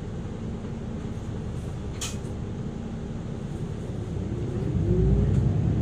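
Isuzu Erga Hybrid city bus heard from inside: a steady low rumble, a short hiss of air about two seconds in, then a rising whine as the bus pulls away, growing louder over the last second or so.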